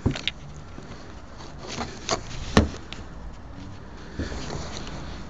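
Handling knocks from a camera being set down and settled into place: several light thuds and bumps, the loudest about two and a half seconds in.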